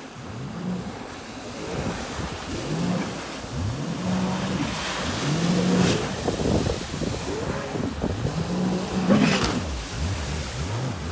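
Sea-Doo GTX 300 Limited personal watercraft's supercharged engine revving up and down over and over, its pitch rising, holding and falling every second or two. Two brief rushing bursts of noise come about six and nine seconds in.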